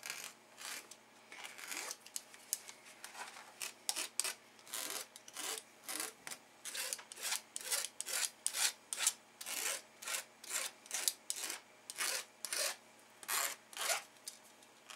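Repeated rubbing strokes of a flat tool scraped across a diamond painting canvas, about two a second, smoothing the canvas flat.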